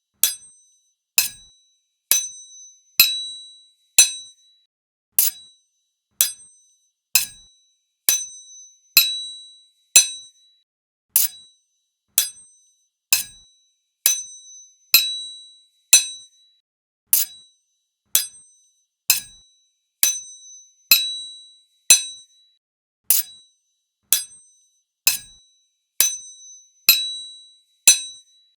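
Two sword blades striking each other one at a time, about once a second, each hit a sharp metallic clang that rings with a high tone and fades within a second. A few strikes ring out longer than the rest.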